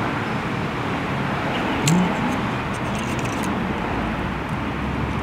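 Steady noise of road traffic, with one sharp click about two seconds in and a few faint ticks after it.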